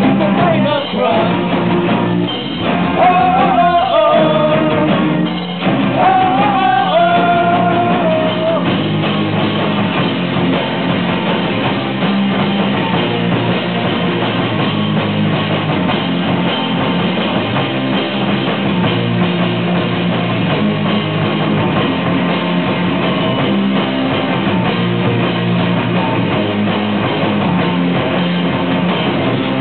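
Live rock band playing, with acoustic guitar, electric guitar and bass guitar. A voice sings a melody over it for the first eight or so seconds, then the band carries on without vocals.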